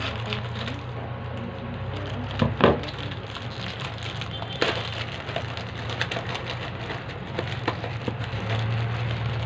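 Plastic wrapper of an Oreo biscuit pack crinkling and tearing as it is cut and pulled open by hand, a run of irregular crackles with the loudest about two and a half seconds in, over a steady low hum.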